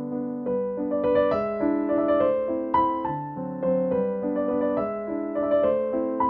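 Background music: a gentle piano melody over held chords.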